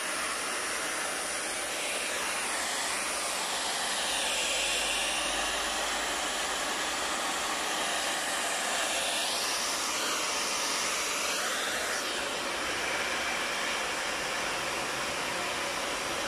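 Hand-held hair dryer blowing steadily as hair is dried and stretched with a brush; its rushing tone sweeps up and down now and then as the dryer is moved about the head.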